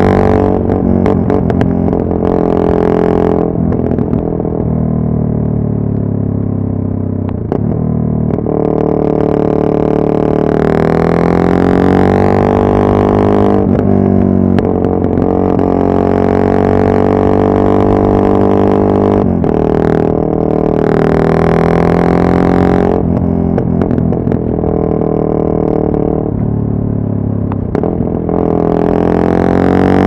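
Yamaha MT-03's 660 cc single-cylinder four-stroke engine under way, its exhaust drone rising and falling in pitch with the throttle, with several sharp drops in revs.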